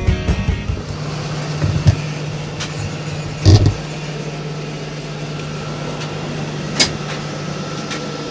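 A vehicle engine idling with a steady low hum. A loud single thump comes about three and a half seconds in, and a sharp click near the end.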